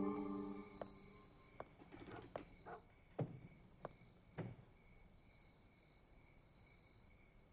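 A door opening and a series of soft footsteps on a wooden floor, about one every two-thirds of a second, ending about four and a half seconds in. Faint steady chirping of night insects such as crickets carries on behind them, and background music fades out at the very start.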